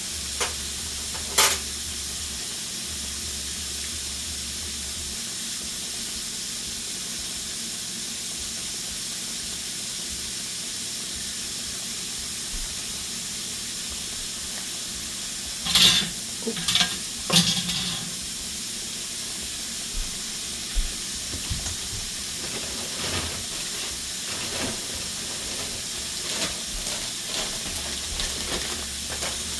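Food frying in a pan, a steady sizzle, with a few clinks and knocks of kitchen utensils or dishes just after the start, a louder cluster past the middle, and lighter ones toward the end.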